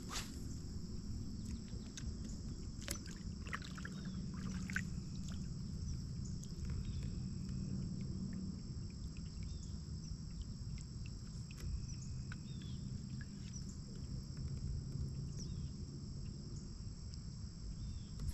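Lake-shore ambience: a steady high drone of insects with a few short bird chirps and faint clicks, over a low rumble.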